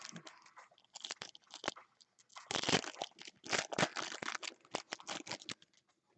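Foil wrapper of a Bowman Chrome football card pack crinkling and crackling as it is torn open and pulled off the cards, in a run of quick strokes from about a second in, loudest in the middle, stopping near the end.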